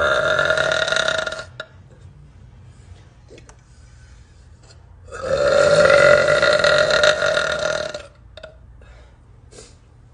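A woman's long, loud burps at a steady pitch. One ends about a second and a half in, and a second runs nearly three seconds from about five seconds in, with faint clicks between them.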